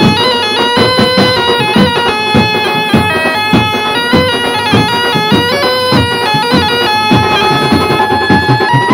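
Background music: a sustained melody stepping between held notes over a steady drum beat.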